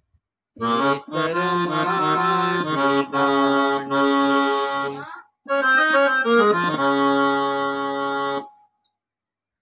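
Electronic arranger keyboard playing a slow melody in held notes, in two phrases with a short break about five seconds in, and stopping about a second before the end.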